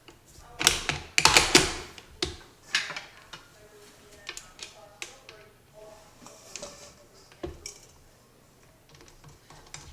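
Irregular clicks, knocks and clatter of hard plastic and metal parts being handled as a KitchenAid stand mixer's apple peeler attachment is fitted and set up. The clatter is busiest in the first couple of seconds and thins to scattered taps after that.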